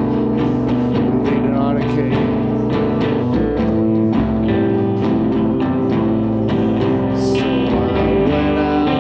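Solo guitar played through effects pedals: plucked notes over layered, held tones.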